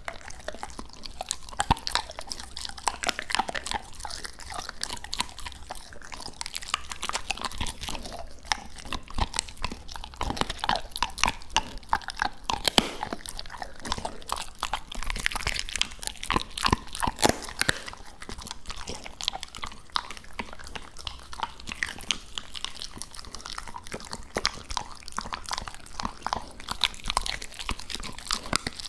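Labrador retriever chewing raw duck close to the microphone: wet chewing with many sharp crunches coming at irregular intervals.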